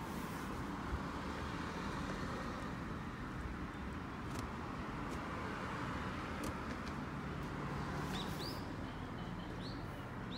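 Steady background noise of distant traffic. Near the end come a few short, high chirps that rise in pitch.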